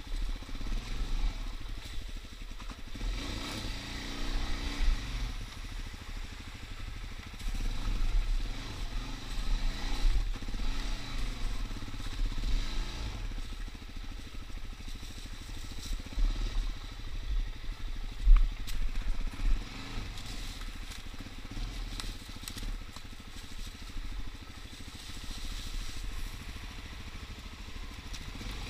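Suzuki DR-Z dual-sport motorcycle's single-cylinder four-stroke engine being ridden along a trail, its note rising and falling with the throttle over a steady low rumble. There is one loud knock about two-thirds of the way through.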